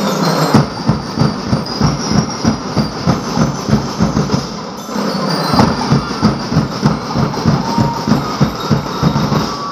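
Drums of a street-dance percussion group playing a fast, steady beat, about four strokes a second, with a brief let-up about halfway through before the beat picks up again.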